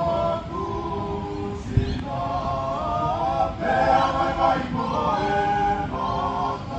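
Background music of sung voices in layered harmony, with a single sharp knock about two seconds in.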